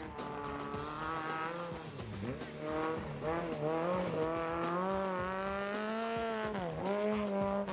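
Rally car engine revving hard on a dirt track, its pitch rising and falling through the gears, with sharp drops in revs about two seconds in and again near the end.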